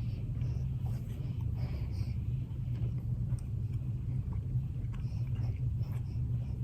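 Steady low hum, like a running engine or an air-handling unit, unchanging throughout.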